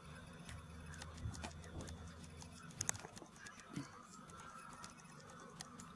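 Faint scratching and light taps of a cat's claws and paws on a rug and a small plastic ball as it plays, with a few sharper clicks about three seconds in.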